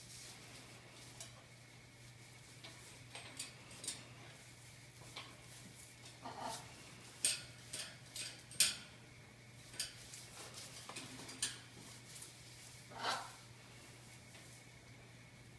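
Irregular sharp clicks and taps of a young blue-and-gold macaw's beak and claws knocking on a metal crossbar as it struggles to grip and climb onto it, with a couple of softer scuffs. The taps cluster in the middle, several in quick succession.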